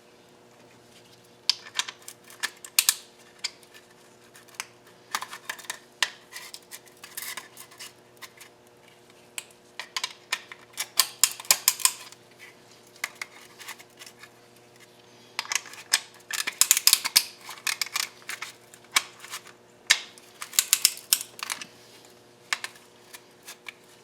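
Bursts of sharp metallic clicks and clinks: small steel engine parts and hand tools being handled while fitting the connecting-rod bearings and pistons, in several clusters with short pauses between them.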